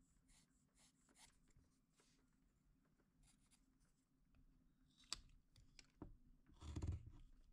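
Faint scratching of a pencil drawing lines on a wooden block, followed near the end by a carving knife cutting into the wood, with a few sharp clicks and one louder slicing cut.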